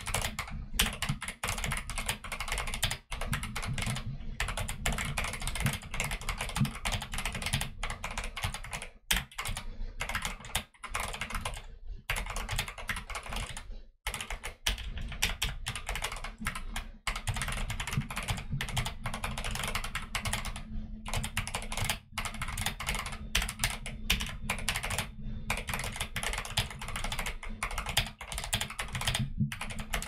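Fast, continuous typing on a custom YMDK Wings mechanical keyboard with Akko Jelly Black linear switches and Akko Neon keycaps. The keys clack in dense quick runs, broken now and then by brief pauses.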